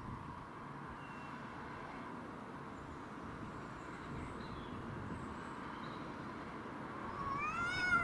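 Cat yowling in a territorial standoff: a drawn-out cry that rises in pitch and grows louder over about the last second, over steady outdoor background noise.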